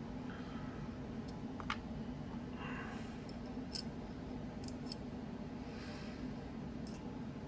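A few faint, scattered light clicks of small folding-knife parts (pivot collars, handle scale) being handled and fitted, with soft crinkling of a small plastic parts bag, over a steady low hum.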